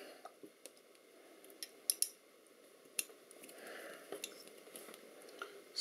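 A few faint, sharp metal clicks and taps as a small hand tool and fingers work the bolts on a stainless-steel housing, over a faint steady hiss.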